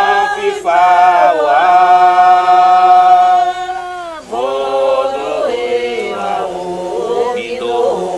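Sung Afro-Brazilian ritual chant, with long held notes and the pitch sliding between them, and a brief break about four seconds in.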